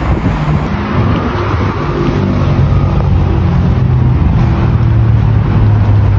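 A car engine running close by, a steady low hum that grows a little louder over the clip.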